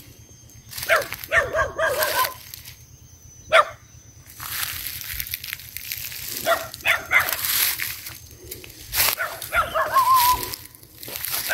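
Dogs whining and yipping in three short bouts of high, wavering calls: about a second in, around the middle, and near the end. A sharp knock comes between the first two bouts, and brush rustles.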